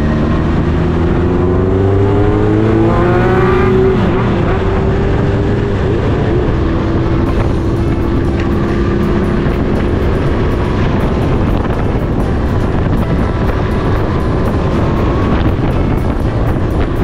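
Yamaha XJ550 motorcycle with an Ikazuchi aftermarket muffler under way. The engine accelerates with its pitch rising for about four seconds, shifts up, then runs at a steadier pitch under a rushing noise.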